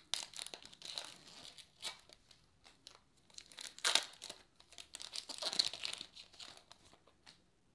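Foil wrapper of a baseball card pack being torn open and crinkled by hand, in irregular crackles, loudest about four seconds in and again around five and a half seconds.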